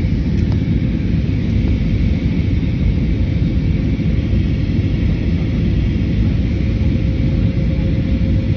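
Steady in-flight cabin noise of a jet airliner: a loud, even rumble of engines and airflow with a faint steady hum above it.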